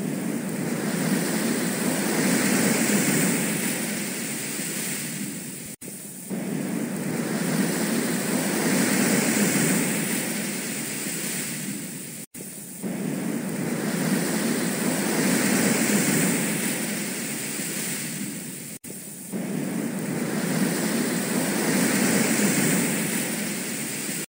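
A rushing, surf-like noise that swells and fades, repeating about every six and a half seconds with a brief cut between repeats.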